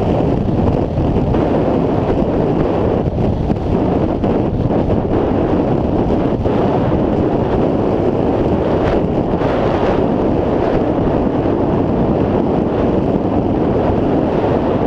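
Wind buffeting the camera's microphone: a loud, steady, low rumble with no break.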